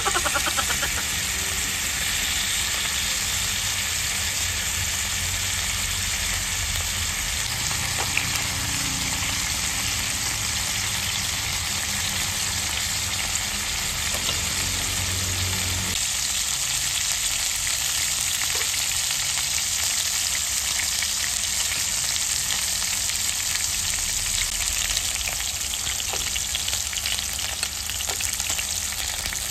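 Chicken pieces frying in hot oil in a nonstick pan: a steady sizzle with an occasional faint pop.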